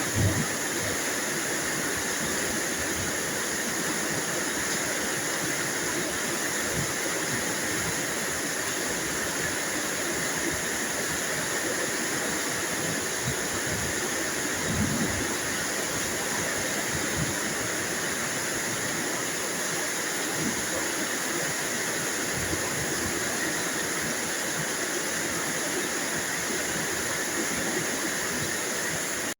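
Steady heavy rain, an even hiss with no let-up, with a faint low rumble about halfway through.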